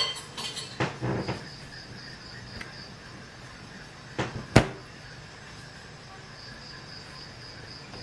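A few short knocks and clatters from handling things at a sink, the sharpest and loudest about halfway through, over a faint, evenly pulsing high chirp.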